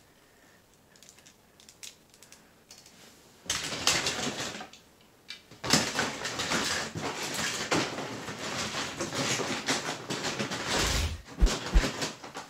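Rustling of a plastic bag and clattering of plastic toy figures as a hand rummages in a crate of action figures. It comes in a short spell about three and a half seconds in, then a longer one from about six seconds, with a few low thumps near the end.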